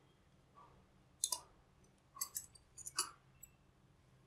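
Sheet-metal clamp of a small step-down transformer being worked loose by hand: a scatter of short, sharp metallic clicks, the loudest about a second in and about three seconds in.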